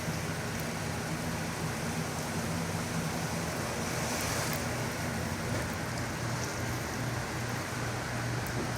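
Hurricane winds rushing steadily outside the building, swelling slightly for a moment midway, with a low steady hum underneath.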